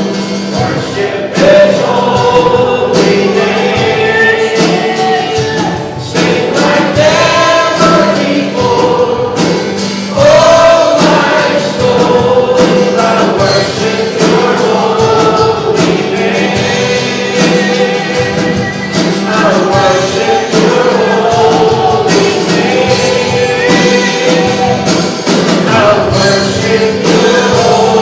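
Congregation and worship band singing a hymn-style worship song, with sustained sung notes over an instrumental accompaniment.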